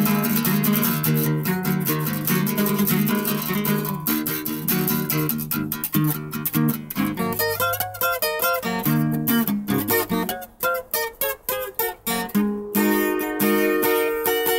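Background music led by plucked and strummed acoustic guitar, thinning out to sparse separate notes in the middle before the full strumming returns.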